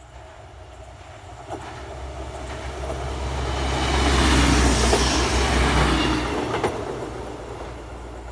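SA134 diesel railcar passing slowly, its low engine rumble and wheel noise swelling to a peak about halfway and then fading as it moves away. A couple of sharp clicks of wheels over rail joints come early on the approach and again as it passes.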